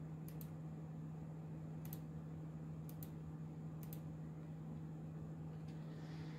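Quiet room tone: a steady low hum with a few faint, sharp clicks scattered through it.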